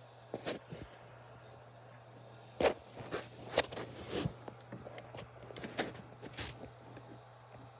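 A string of irregular knocks and clicks, the loudest about a third of the way in, over a faint steady low hum.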